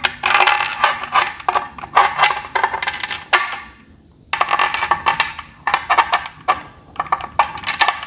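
Loose steel bolts and metal bike parts clinking and rattling as they are handled and fitted, in quick irregular clicks with short metallic ringing and a brief pause about four seconds in.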